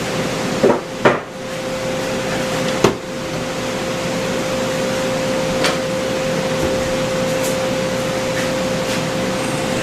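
A steady rushing mechanical noise with a constant hum, broken by a few sharp knocks: two about a second in, one near three seconds and a fainter one near six seconds.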